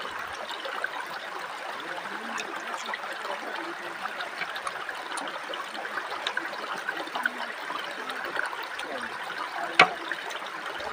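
Shallow river running over rocks, a steady rush and babble of water, with faint small ticks and one sharp click near the end.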